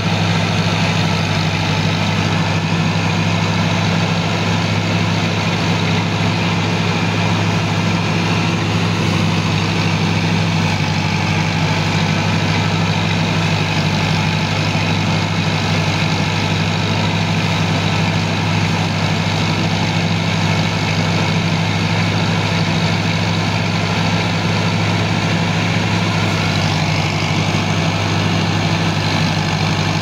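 Tractor-powered rice thresher running steadily, its blower throwing chopped straw and chaff out of the spout: a constant low hum under a broad rushing noise.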